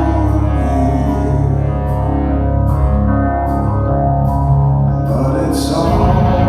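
Rock band playing during a soundcheck, with singing over sustained, heavy low-end instruments.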